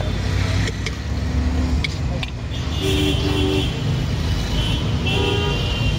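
Busy street traffic rumbling steadily, with background voices and a few sharp clicks. Short pitched tones sound about three seconds in and again near the end.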